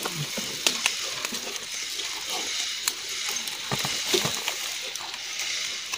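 Cut bamboo stalks and dry bamboo leaves being handled, a continuous rustling and crackling with many scattered small clicks and knocks.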